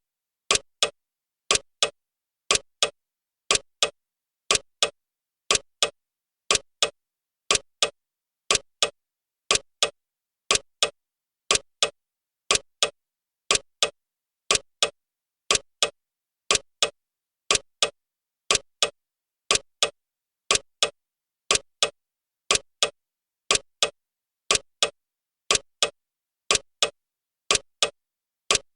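Clock ticking of a countdown timer: short, sharp ticks that come in close tick-tock pairs about once a second, steady and even, with silence between.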